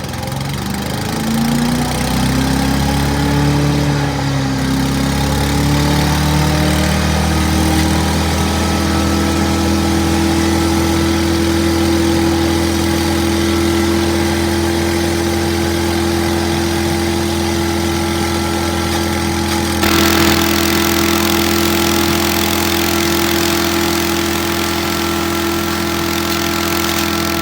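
Gasoline engine of a wood chipper running, its speed climbing over the first several seconds and then holding steady and smooth on a freshly fitted carburetor. About twenty seconds in, a harsher, slightly louder noise joins the engine.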